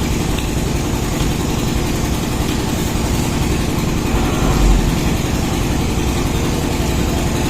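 Steady mechanical drone of a running engine or machine from outside, with one constant hum tone and an even noise over it, unchanging throughout.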